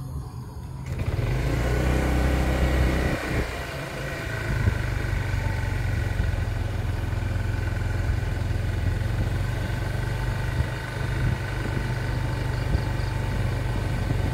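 A motor vehicle's engine running with a steady low rumble, starting about a second in.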